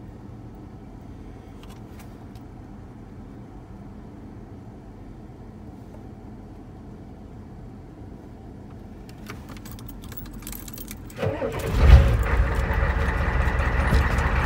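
A few clicks, then about 11 seconds in a Ford F250 diesel engine cranks, catches and keeps running loudly. This is a cold-ish start tried without the glow plugs.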